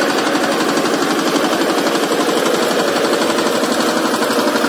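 Single-cylinder diesel engine of a VST Shakti 130 DI power tiller running steadily, with a rapid, even knock from its firing strokes.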